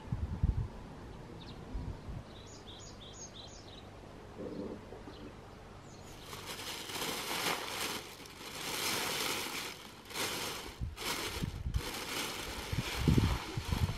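Rural outdoor ambience with a small bird chirping about five times in quick succession about three seconds in. From about six seconds, a louder rustling hiss in waves: dried sesame seeds being scooped, poured and spread on a plastic tarp, with low thumps near the end.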